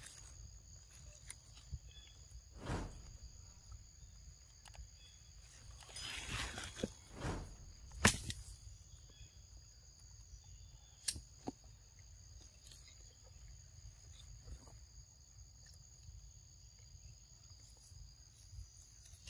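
Steady high-pitched drone of insects in two bands, with scattered short knocks and rustles; the sharpest, a single click, comes about eight seconds in.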